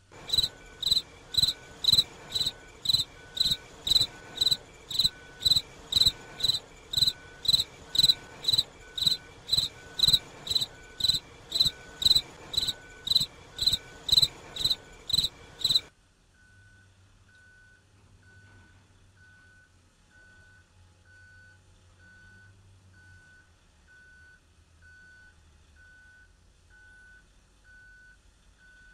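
Railroad warning bell ringing in a fast, even beat of about two high strokes a second, stopping suddenly after about sixteen seconds, as a locomotive runs slowly down a street track. A vehicle backup alarm beeps faintly and steadily throughout.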